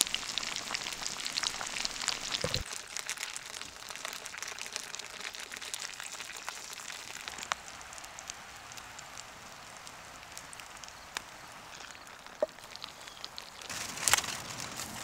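Food sizzling and crackling as it cooks over a campfire: a steady hiss full of small pops, easing off slightly, with a short clatter near the end.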